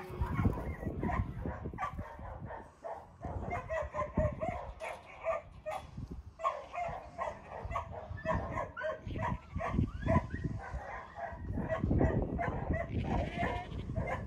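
A dog barking over and over in short, quick calls, with a low rumble underneath.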